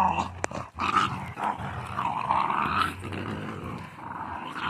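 Dogs growling in a play tug-of-war over a stick, rough irregular growls that are loudest in the first second.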